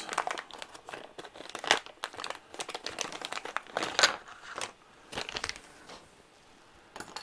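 Plastic parts bag crinkling and rustling as it is handled, with irregular clicks and a few sharper snaps, the loudest about two and four seconds in.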